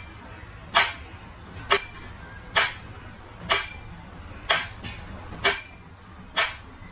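Mechanical pendulum metronome ticking about once a second. Every other tick carries a bell ding that rings until the next tick.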